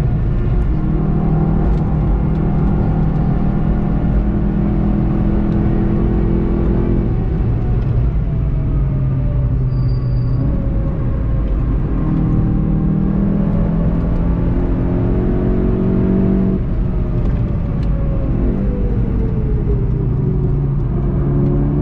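Inside the cabin, a VW Golf 7.5 GTI TCR's turbocharged 2.0-litre four-cylinder runs at speed over a steady rumble of tyres and road. Its note holds for several seconds at a time, then steps and falls as the car slows, with a longer falling note near the end under braking.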